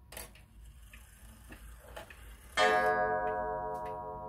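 Hermle Vienna wall clock ticking, then striking once about two and a half seconds in, a single half-hour strike set off by turning the minute hand; the note rings on and slowly fades while the ticking goes on.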